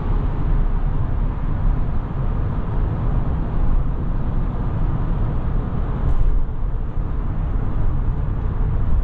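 Steady road and wind noise inside the cabin of a 2022 GMC Sierra 1500 Denali pickup cruising at highway speed: an even, low rumble of tyres on pavement with a softer hiss above it.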